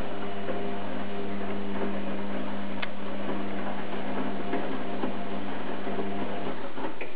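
Electrolux EWF 860 washing machine running: a steady motor hum over a hiss, with scattered clicks. The hum stops near the end.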